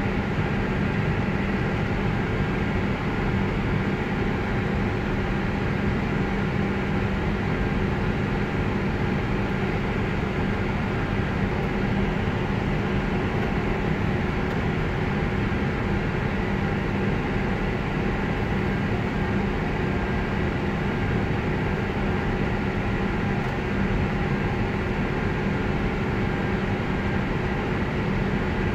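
Steady cockpit noise of an Airbus A319 standing before take-off, engines idling: a constant rushing hum with a few steady tones that does not change.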